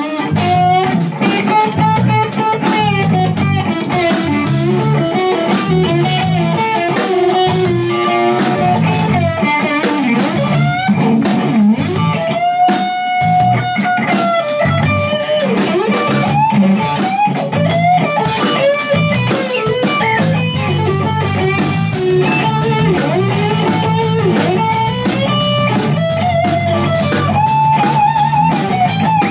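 Live rock band playing: an electric guitar lead line with bending notes over a drum kit.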